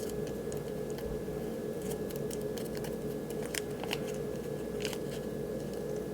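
Blue painter's tape being pulled and wrapped around a plastic action figure's arm: scattered light crackles and ticks over a steady background hum.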